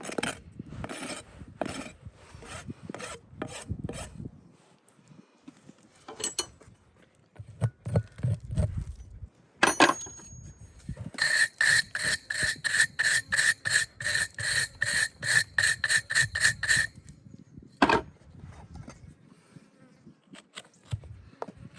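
A farrier's hoof rasp filing a horse's hoof in even strokes. After a pause, a run of faster strokes follows that carries a high ringing squeal.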